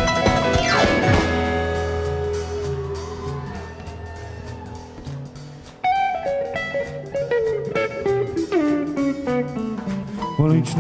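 Live country band in an instrumental break, with electric guitar and drums. The full band hits hard for the first second or so, then a held chord dies away. About six seconds in the band comes back in more softly, with guitar notes sliding and bending, leading into the next verse.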